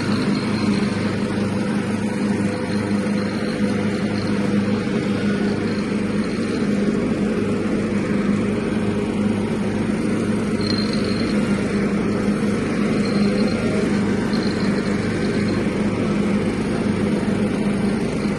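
Engine of a 1976 John Deere riding lawnmower running at a steady, even pitch while mowing leaves.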